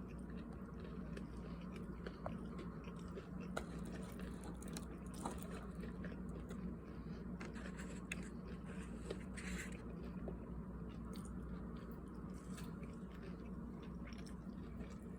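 A person chewing a meal of crispy breaded chicken wings and potato wedges, with scattered short sharp crunches over a steady low hum.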